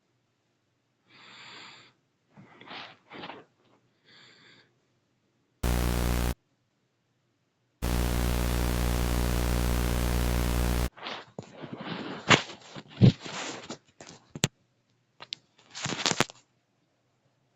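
A harsh electronic buzzing tone sounds once briefly, then again for about three seconds. A run of sharp clicks and short rustling noises follows.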